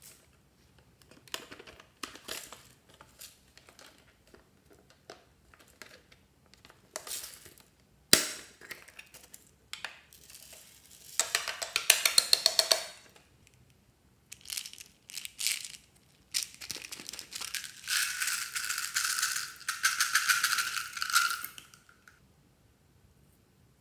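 Plastic toy containers clicking and tapping as they are handled, with a sharp snap about a third of the way in. Small beads and sprinkles rattle as they are shaken out onto slime in a glass tray, in two spells of dense rapid rattling: one about halfway through and a longer one near the end.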